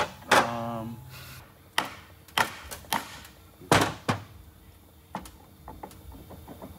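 A string of sharp metallic knocks and clanks, about six in four seconds, from hand tools and parts of a removed rear differential being handled on a steel workbench.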